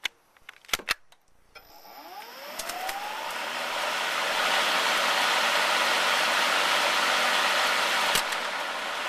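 A few clicks, then the RYOBI 40V brushless 20-inch cordless lawn mower's motor and blade spin up with a rising whine into a steady whir. It is running on a battery down to one blinking bar. A sharp click comes near the end.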